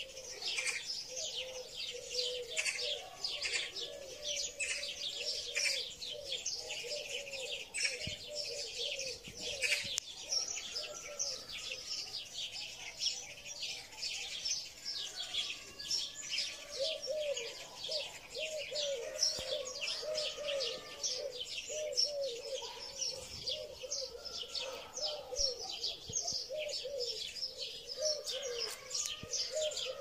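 Many small birds chirping continuously, with a lower, softer call repeated in quick runs underneath.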